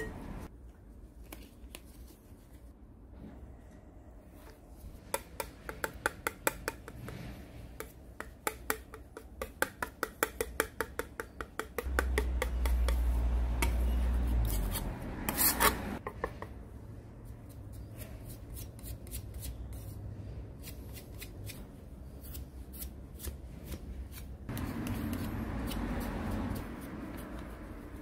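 A wide steel putty knife scrapes and mixes body filler on a steel plate in quick, repeated strokes, with a low rumble for a few seconds in the middle. Near the end, the filler is smeared onto the jackhammer's metal housing.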